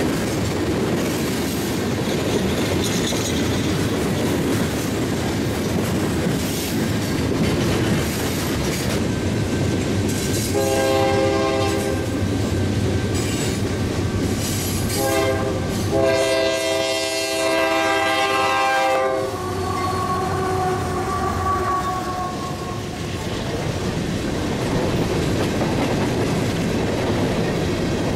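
Freight cars rolling past with steady wheel clatter on the rails. About ten seconds in, a diesel locomotive's multi-note air horn sounds three blasts, long, short and long, then the hopper cars rumble by.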